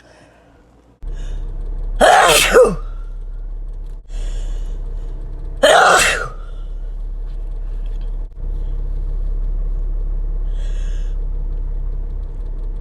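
Two separate human sneezes, one about two seconds in and one about six seconds in, with a steady low hum underneath.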